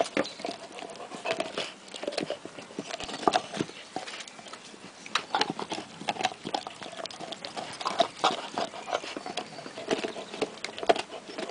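Labrador retriever gnawing a large raw bone: its teeth scrape and grate on the bone with irregular sharp clicks and cracks.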